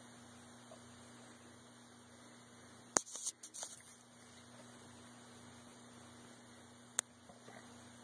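Steady low electrical hum under faint hiss, broken by a quick cluster of clicks and rattles about three seconds in and a single sharp click about seven seconds in.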